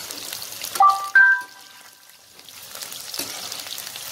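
Chicken pieces deep-frying in hot oil in a kadhai: a steady crackling sizzle, with a slotted spoon moving through the oil. About a second in, two short tones sound one after the other, louder than the frying. The sizzle then drops low for a moment before building again.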